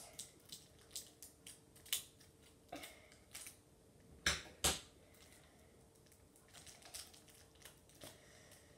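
Scattered light clicks and taps of small plastic containers being handled as glitter is added to slime, with two louder knocks close together a little after four seconds in.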